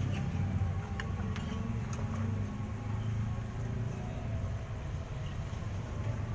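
Steady low rumble of street traffic and engines, with a few light clicks of a metal spoon against a steel cup in the first two seconds.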